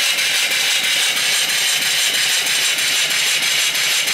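Small vertical reversing steam engine running on steam from a boiler, its exhaust hissing steadily with a fast, even beat.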